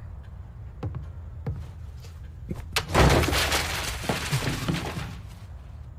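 Sound effect from the anime's soundtrack: a few faint clicks, then about three seconds in a sudden loud burst of noise that dies away over about two seconds.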